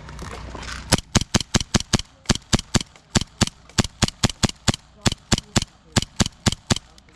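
Airsoft gun firing rapid single shots, about four to five a second in short strings with brief pauses, starting about a second in and stopping near the end.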